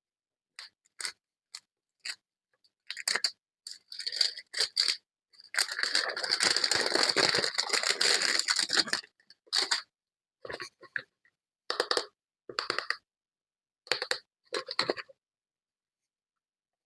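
Packaging being handled and torn open: short crinkles, then about three seconds of continuous tearing and crinkling, then more short crinkles.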